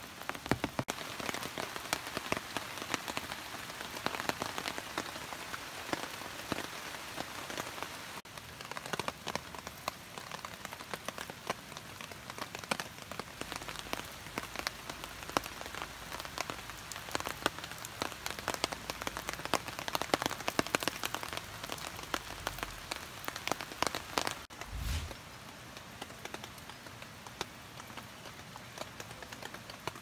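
Steady rain falling on a camping tarp and the forest around it, with many sharp individual drops striking close by. A brief low thump sounds about 25 seconds in.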